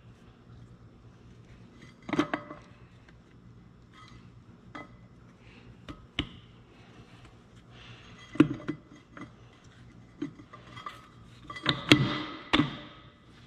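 Steel gears of an excavator's planetary final drive clinking and knocking against one another and the housing as a gear set is fitted in by hand: a few scattered metallic knocks, the loudest cluster near the end.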